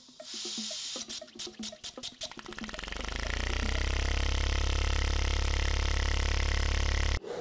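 Compressed-air rotary flap engine fed at 2 bar, driving a carbon-fibre propeller. After a few quick ticks it spins up into a rising hum about two and a half seconds in, then runs at a steady pitch with a hiss of air, and cuts off suddenly near the end.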